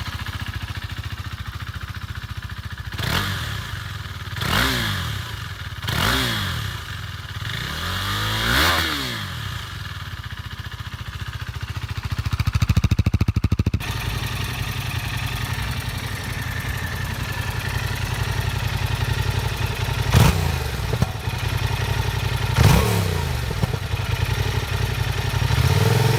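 Motorcycle engine idling and being revved in short throttle blips, the pitch rising and falling back each time: four blips in the first nine seconds, then a steadier idle with two more blips near the end. The idle note changes about halfway.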